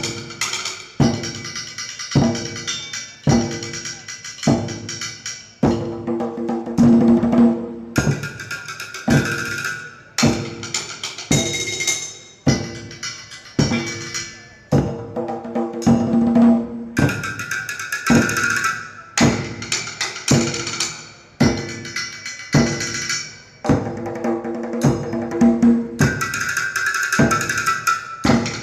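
Ensemble percussion on improvised instruments: a hand drum, metal trays and pots, and a plastic jerry can beaten with sticks in a steady rhythm. Strong accents fall about once a second, with ringing metallic tones in places.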